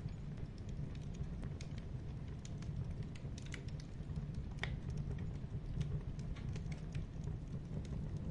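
Wood fire burning: a steady low rumble with irregular crackles and small pops, one sharper pop a little past halfway.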